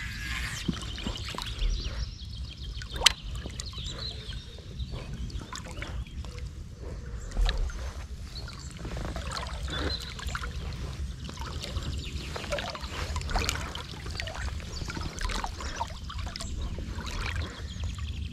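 Water lapping and trickling against an inflatable float tube, with scattered light clicks and one sharp click about three seconds in.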